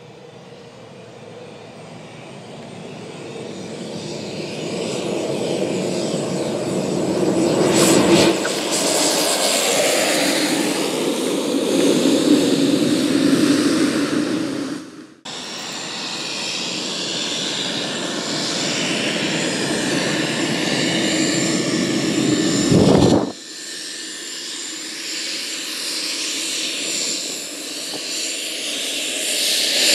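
Light airplane engine growing louder as a low-wing plane with its gear down comes in close on approach. Two abrupt cuts follow. Near the end a Socata TBM single-engine turboprop on the runway gets louder again.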